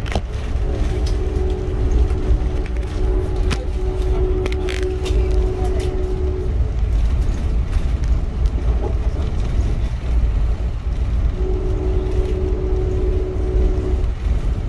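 Train horn sounding two long blasts, the first about six seconds and the second about three, a steady two-note chord over a constant low rumble.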